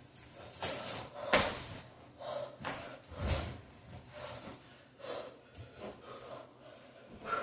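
A person breathing hard in sharp exhales during a floor exercise, with thuds and scuffs of body and sneakers on a wooden floor; the loudest is a sharp knock about one and a half seconds in.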